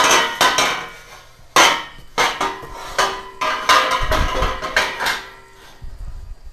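Welded steel-tube crosskart floor frame clanking against the steel-tube jig as it is flipped over and set back into place: a series of sharp metal clanks, each leaving a short ring, with a few duller thuds, dying away after about five seconds.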